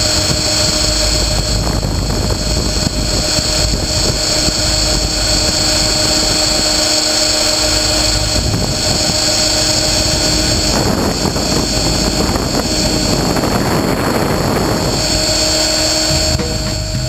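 Align T-REX 550E electric RC helicopter in flight, heard from its onboard camera: a steady whine from the motor and drivetrain over rotor and wind rush. The rush grows rougher for a few seconds past the middle.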